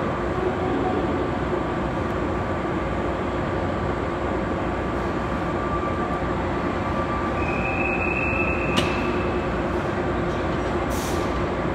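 413 series electric train standing at the platform, its onboard equipment running with a steady hum. About eight seconds in there is a brief high beep ending in a click, and near the end a short hiss.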